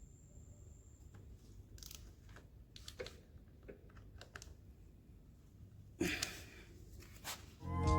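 Faint scattered clicks and taps of small metal parts and tools being handled, with a louder clatter about six seconds in. Music starts just before the end.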